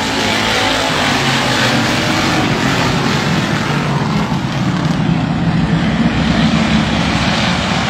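A field of Detroit Iron stock cars racing on a short oval at full throttle, many engines blending into one loud, steady din that swells a little about five to six seconds in as the pack passes.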